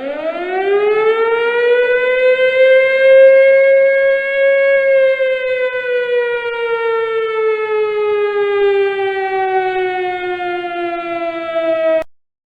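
Air-raid siren winding up in pitch, holding, then slowly winding down, with no speech over it. It cuts off suddenly near the end.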